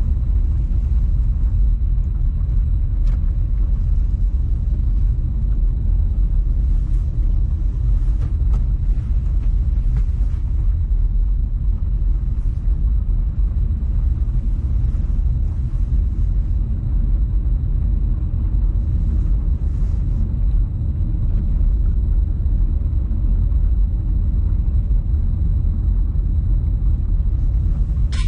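A loud, steady low rumble with a faint, thin high-pitched whine above it.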